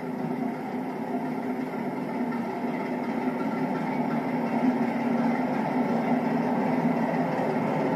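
British Rail Class 47 diesel locomotive's Sulzer twin-bank twelve-cylinder engine running steadily as the locomotive rolls slowly past, growing a little louder as it nears.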